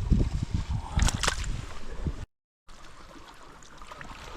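Low rumbling and knocks of the microphone being handled, with two sharp clicks about a second in. After a brief cut to silence, the faint steady rush of creek water.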